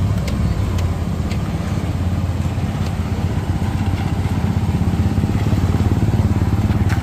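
An engine running steadily close by with a fast, even pulse, growing a little louder in the second half.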